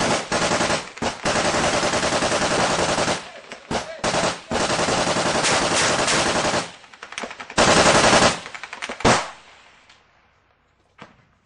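Heavy automatic gunfire at close range: long, near-continuous bursts of machine-gun fire with short breaks for the first six or seven seconds, another burst about eight seconds in and a single loud shot about nine seconds in, after which the firing dies away.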